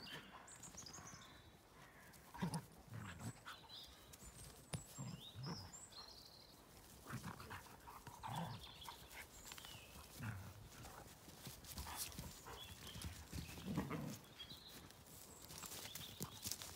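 Dogs at rough play: scattered short, faint grunts and growls every second or two, with birds chirping in the background.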